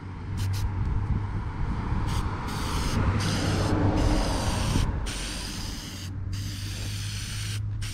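Aerosol spray-paint can hissing as it sprays paint onto a panel, in long bursts with short breaks between them.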